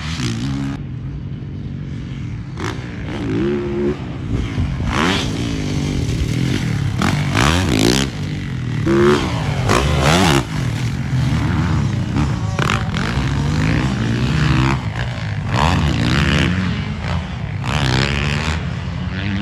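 Dirt bike engine revving up and down as it is ridden around a motocross track, its pitch climbing and dropping again and again through the throttle and gear changes. It is loudest about halfway through, when the bike comes closest.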